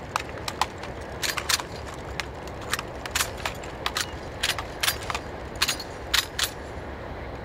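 Rifle drill: about twenty sharp slaps and clicks of hands striking rifles and metal parts rattling as a line of cadets brings their rifles down from the shoulder to order arms. The slaps are unevenly spaced and ripple along the line.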